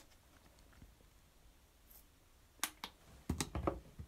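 Faint room tone, then from about two and a half seconds in a handful of short sharp clicks and light knocks as a toothpaste tube and toothbrush are handled at a bathroom sink.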